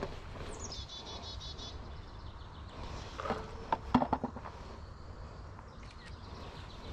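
A cluster of sharp clicks and knocks about three to four seconds in, from hand work on the condenser's electrical parts as the run capacitor is changed out. A bird's short trill comes about half a second in.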